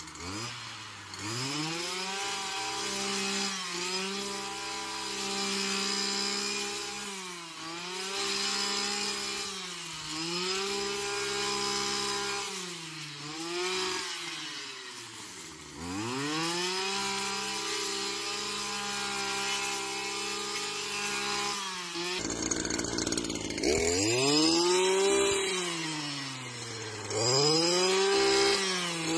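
Petrol engine of a Stihl backpack brush cutter running at high speed while cutting tall grass, its pitch dropping and climbing back every few seconds as the throttle is eased and opened again.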